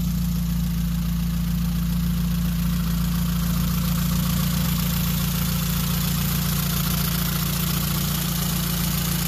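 Honda Accord LX four-cylinder engine idling steadily, exhausting through an aftermarket stainless 4-into-1 header into a straight pipe with no muffler.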